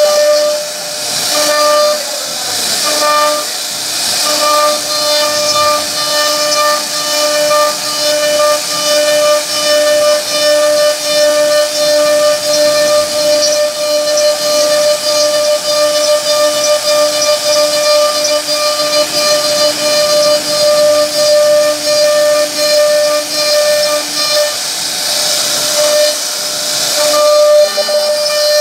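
CNC router spindle whining steadily while its bit routes grooves into a wooden panel, with the hiss of wood being cut. Twice, near the start and near the end, the whine wavers and the cutting hiss grows louder.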